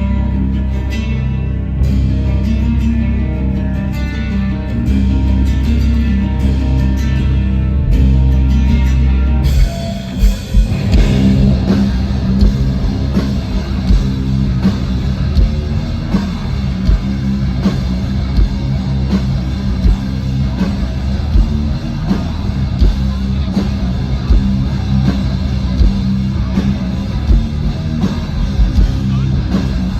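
Metal band playing live through a festival PA, heavy guitars and bass. A sustained, heavy low section gives way about ten seconds in to a steady, pounding drum beat under the guitars.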